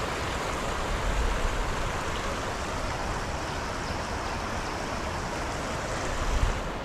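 Floodwater of a swollen creek or river rushing steadily, with brief low rumbles about a second in and near the end.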